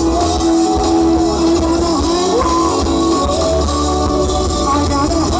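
Live band playing loudly and steadily: electric guitar, drum kit and keyboard under a held, bending vocal line.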